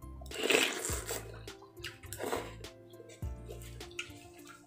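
Noodles being slurped and chewed, with two wet slurps, the louder about half a second in and a shorter one a little after two seconds, over background music.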